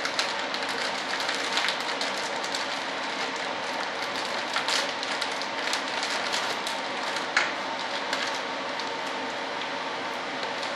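Plastic vacuum-bagging film crackling and crinkling in irregular sharp clicks as it is pressed and smoothed down by hand over a foam-core elevator layup, over a steady hiss.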